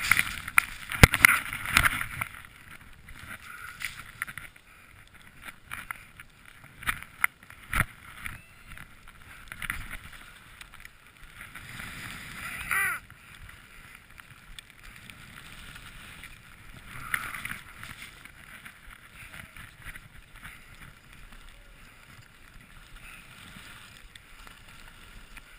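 Skis running through deep powder snow: a rushing hiss with many sharp knocks and bumps, loudest in the first two seconds and settling to a quieter, steadier hiss near the end. About 13 seconds in there is a brief wavering tone.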